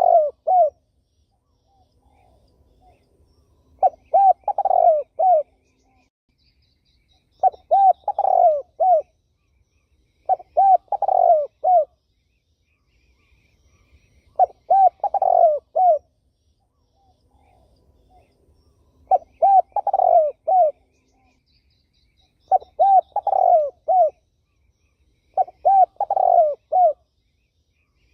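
Spotted dove cooing: a phrase of several low, rounded coos, repeated about every three to four seconds. Faint chirps of small birds sound between the phrases.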